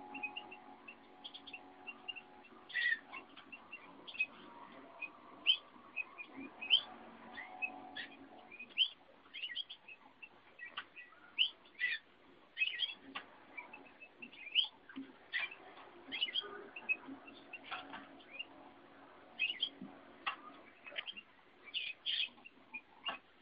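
Caged finches, a Eurasian bullfinch and a red canary, chirping: a busy run of short, sharp chirps and calls, often several a second.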